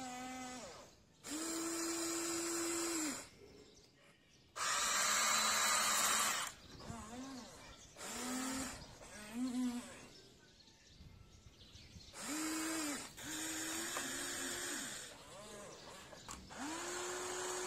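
Huina 1593 RC excavator's electric motors and gearboxes whining in repeated bursts of a second or two as the boom, arm and bucket work and the upper body swings. Each burst starts with a short rise in pitch and stops abruptly.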